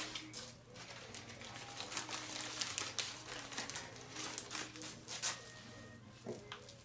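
Plastic bag crinkling and rustling as it is handled, in irregular crackles, over a low steady hum.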